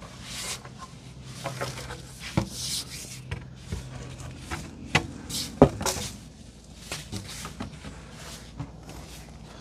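Leaves rustling and twigs snapping and knocking as a picking stick works through the branches of an ackee tree, a string of irregular sharp cracks with the loudest about halfway through.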